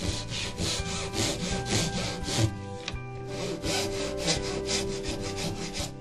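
Fine-toothed Japanese hand saw cutting a thin kumiko strip in a wooden jig, in quick back-and-forth strokes of about four a second that get a little faster in the second half.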